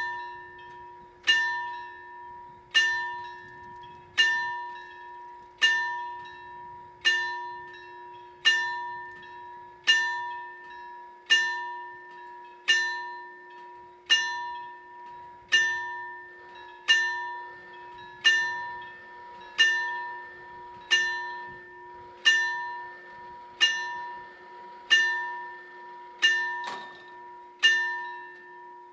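Level-crossing warning bell on an Italian FS64-type crossing ringing, a single loud strike about every 1.4 seconds that rings out and fades before the next. It starts with the first strike just as the warning light comes on, signalling that the crossing is closing for an approaching train while the barriers come down.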